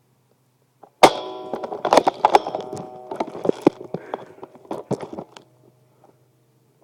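A sudden clatter of knocks and impacts about a second in, with a ringing tone, going on for about four seconds before dying away.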